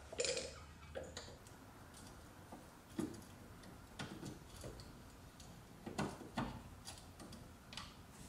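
A screwdriver working out a corroded Phillips screw that holds the fuel-filter strap: faint, irregular clicks and ticks, roughly one a second.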